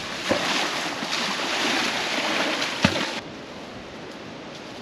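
Water splashing and sloshing as a swimmer moves through the shallows after a rope-swing jump, with two sharp knocks. The noise cuts off abruptly about three seconds in.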